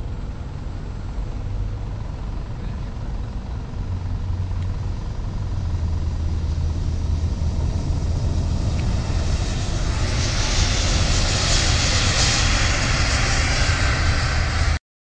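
Airbus A380's four jet engines on the runway: a steady rumble that grows louder and gains a bright hiss about ten seconds in as the airliner draws level. It cuts off abruptly just before the end.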